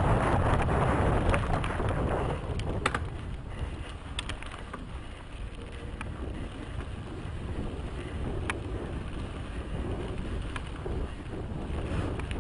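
Wind buffeting a helmet-mounted camera's microphone as a mountain bike rolls down a dirt trail, over a steady rumble of tyres on dirt. Sharp clicks and rattles from the bike on the rough ground come now and then. Loudest in the first two seconds, then easing a little.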